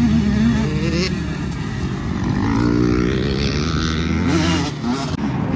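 A dirt bike's engine revving and easing off again and again as it is ridden, its pitch rising and falling with the throttle.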